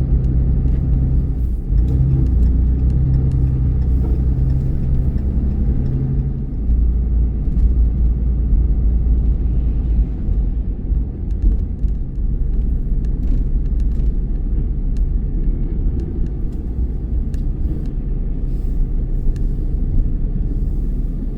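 Truck engine and road rumble heard from inside the cab while driving slowly on snow-covered roads: a steady low hum with a few light clicks.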